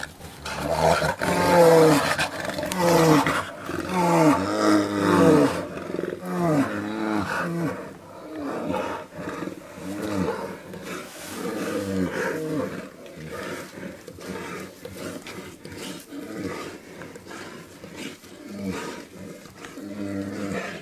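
Brown bears roaring and growling as they fight: a rapid series of loud roars, each falling in pitch, which grow quieter and sparser from about eight seconds in.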